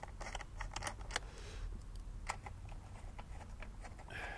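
Faint, scattered clicks and ticks of a small metal socket and extension bar being handled and fitted together, with a couple of sharper clicks.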